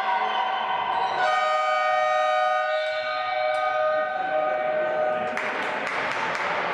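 Long, steady horn tone, most likely the gym's scoreboard horn, shifting pitch twice and cutting off about five seconds in. General hall noise follows.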